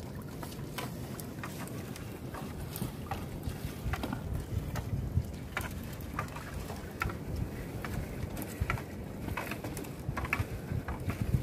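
Water splashing and dripping around a small boat as a fishing net is hauled in by hand, with irregular light knocks and clicks over a steady low wash of water and wind.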